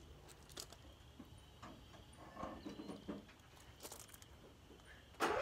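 Footsteps crunching on gravel, faint and irregular. Right at the end a much louder, steady noise starts suddenly.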